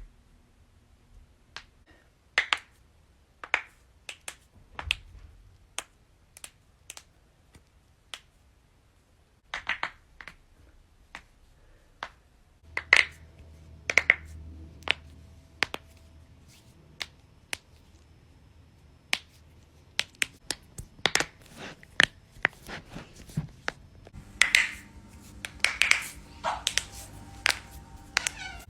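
Finger and toe joints being cracked: a long run of sharp, separate pops at irregular spacing, some single and some in quick clusters. A low steady hum sits behind them for much of the second half.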